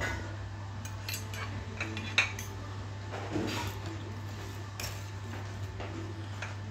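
Knife and fork clinking and scraping on a ceramic plate while cutting crispy chicken pakoras, with scattered light clicks and one sharp clink about two seconds in.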